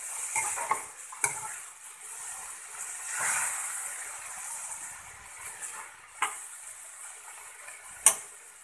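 Chopped vegetables and sprouted methi sizzling in a pan while a metal ladle stirs and scrapes through them, with sharp clicks of the ladle against the pan, the loudest near the end.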